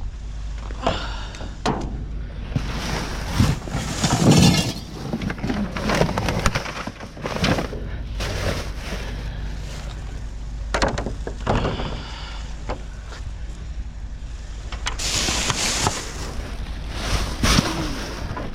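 Rummaging through a dumpster: plastic bags and packaging rustling and crinkling, with items knocking and clattering in irregular bursts over a steady low hum.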